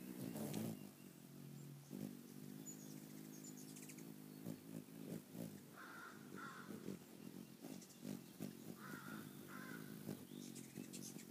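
Low hum of a hummingbird's wings as it hovers at a hand-held feeder, with a crow cawing twice in pairs, about six and nine seconds in.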